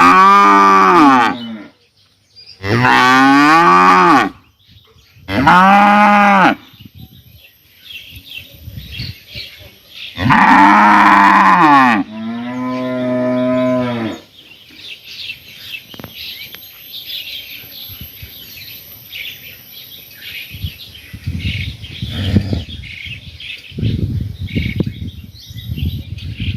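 Cows mooing: five loud, drawn-out moos in the first fourteen seconds, each bending up then down in pitch, the last one lower and flatter. Then the mooing stops, leaving quieter farmyard sounds.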